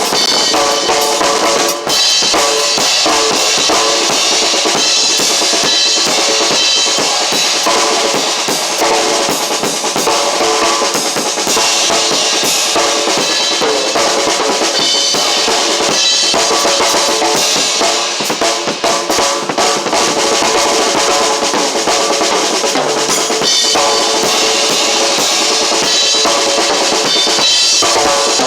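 Drum kit played continuously, with bass drum and snare strikes and cymbals, alongside music that carries pitched notes.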